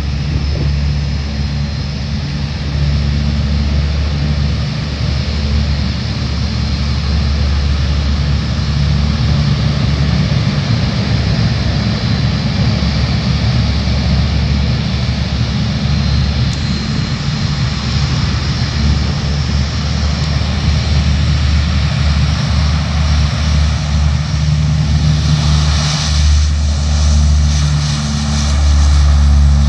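Antonov An-12's four Ivchenko AI-20 turboprop engines running at high power: a steady deep propeller drone with a high whine over it. It grows louder and harsher near the end as the aircraft rolls down the runway on its takeoff run.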